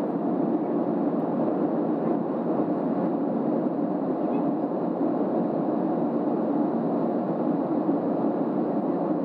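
Steady cabin noise of a Southwest Boeing 737 in its climb after takeoff: an even, unchanging rush of engine and airflow noise inside the cabin.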